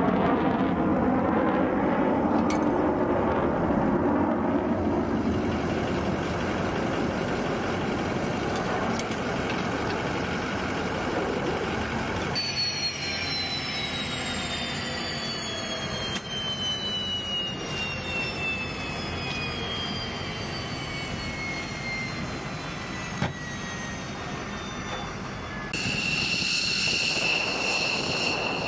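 Jet engine noise on a flight line from F-15C Eagle fighters. About halfway through, a high turbine whine starts and falls slowly in pitch. Near the end it changes to a steady high whine as an F-15C taxis.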